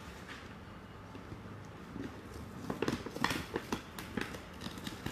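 Black gift-wrapping paper rustling and crinkling as a wrapped box is pulled open. It is quiet at first, then about halfway through comes a run of short, sharp crackles.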